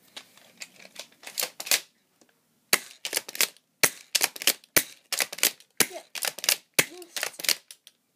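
Shotgun-style BB gun fired repeatedly at close range. From about three seconds in there are heavy snaps about once a second, with quicker clicks and rattles between them; a few scattered clicks come before that.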